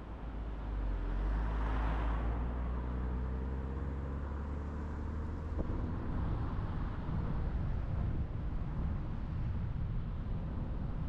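Tyre and road noise of a car driving on the road. In the first half a deep, steady drone with slowly rising overtones runs alongside it and cuts off abruptly about five and a half seconds in.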